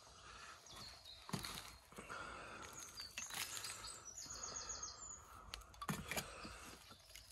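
Loose old bricks being handled in a rubble pile: a few light knocks as bricks are lifted and set against each other. A small bird gives a brief rapid run of high chirps in the background about halfway through.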